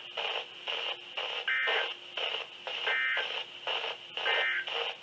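Three short warbling data bursts of the EAS SAME end-of-message code from a NOAA Weather Radio receiver, about a second and a half apart, marking the end of the weekly test. A choppy radio voice sounds underneath them.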